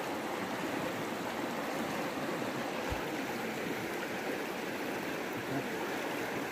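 Shallow river water running over rocks, a steady rushing, with a brief low bump about three seconds in.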